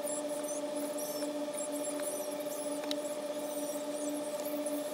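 Steady electrical hum with faint, thin high squeaks as a blade tool scrapes over an iPhone logic board.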